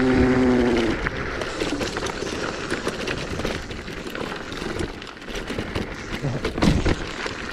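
Zero 10X electric scooter riding down a dirt forest trail: steady rumble of tyres on the ground mixed with wind noise, with a few sharp knocks as it goes over bumps near the end.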